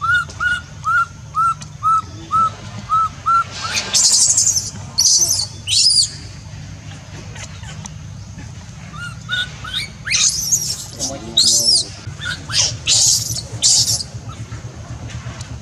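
Newborn baby macaque crying: a run of about eight short squeaky calls in the first three and a half seconds, then shrill screams in two clusters, over a low steady hum.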